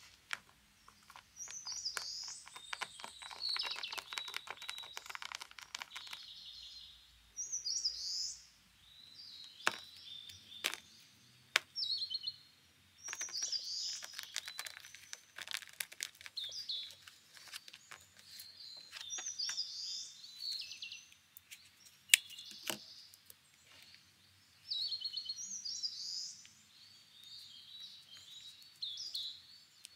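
Small birds chirping repeatedly throughout. Beneath them, tape-covered paper crinkles and clicks as it is handled, densely in the first few seconds and then as scattered sharp clicks.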